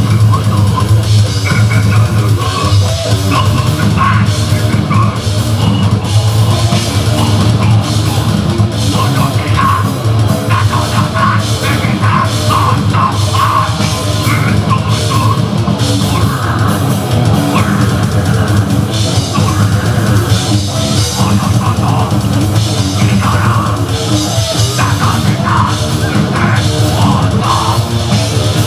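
Metal band playing live and loud: distorted electric guitar, bass guitar and a fast drum kit.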